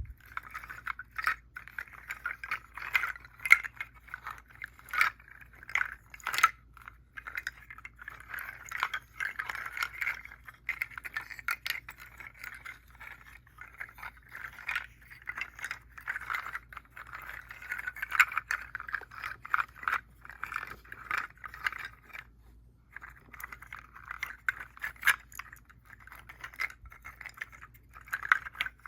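Seed shell rattle rattling: a dense, continuous dry rattle of many small clicks, with a short pause about three quarters of the way through.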